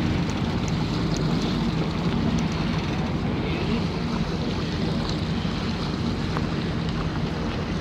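A boat's engine running steadily, with wind buffeting the microphone and water washing past the hull.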